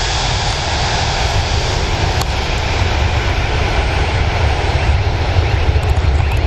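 Boeing 747-300's four Rolls-Royce RB211 turbofans at takeoff power as the jet rotates and lifts off: a loud, steady rumble, heaviest in the deep low end.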